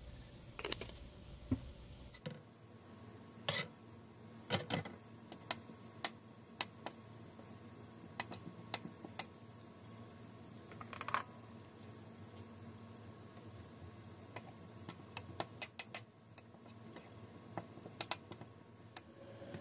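Metal spoon clinking and scraping against a ceramic bowl while stirring a soy-sauce seasoning with chopped green onions: irregular sharp clinks throughout, some in quick clusters.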